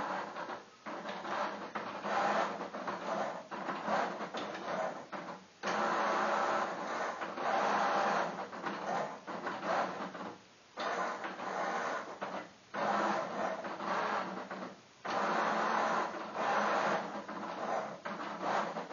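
MB Milton self-moving chess computer's motorised magnet carriage whirring under the board as it slides pieces across the squares. It runs in stretches of a few seconds, with brief pauses where it stops and restarts.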